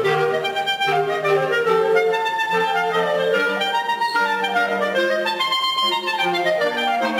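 Clarinets playing together in a small ensemble, several parts at once: a low bass line under moving middle and upper melodies.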